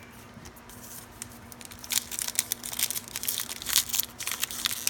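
Foil wrapper of a Topps Fire baseball card pack crinkling loudly as hands work at tearing it open, starting about two seconds in.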